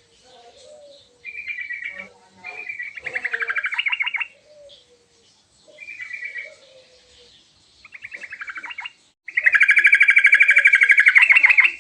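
Sooty-headed bulbul singing: short chattering, trilled phrases separated by pauses, ending in a long, loud rapid trill. Softer, lower warbling notes come in between the phrases.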